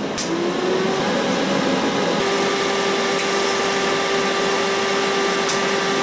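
TIG welder running while tack-welding segmented stainless steel exhaust pipe sections: a steady hum sets in about two seconds in over a steady hiss, with a few sharp clicks.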